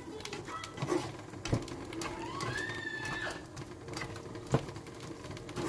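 Black plastic spatula stirring and scraping sautéed bitter gourd and egg in a nonstick frying pan, with a few sharp knocks of the spatula against the pan.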